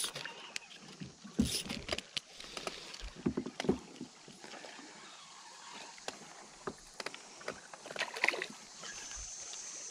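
Scattered knocks and clicks of rod and boat handling while a hooked bass is played in. About eight seconds in the bass thrashes at the surface with a short splash.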